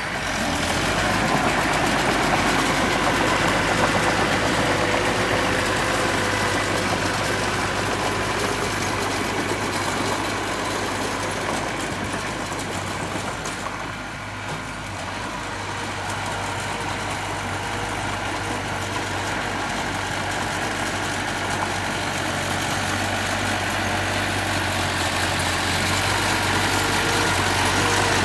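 Diesel engine of heavy earthmoving equipment running steadily, easing off briefly about halfway through.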